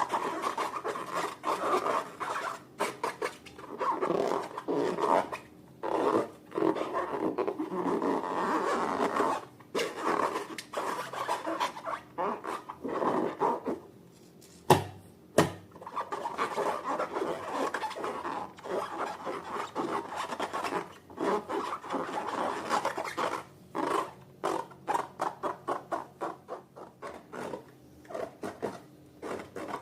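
Slime being squished and stretched by hand: rapid, irregular sticky crackling and rubbing. About halfway through there is a brief pause with two sharp snaps.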